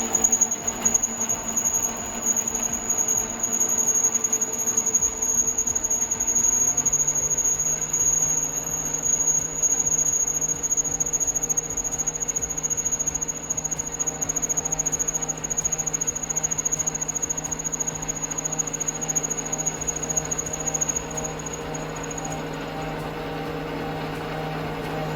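Bernardo Profi 550 WQV mini metal lathe running, with a steady high-pitched whine over a lower hum. A second low tone comes in about six seconds in, and the whine stops near the end.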